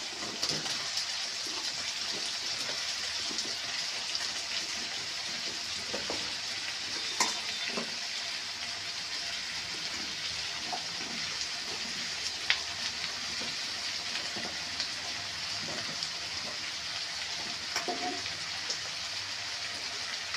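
Oil sizzling steadily in a kadai as boiled jackfruit and potato pieces fry with onions, with a few sharp clicks of metal against the pan.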